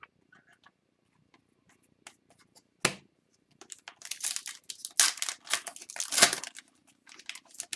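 A hockey card pack wrapper being torn open and crinkled: a sharp rip about three seconds in, then a few seconds of dense crinkling and tearing, with lighter handling noise near the end.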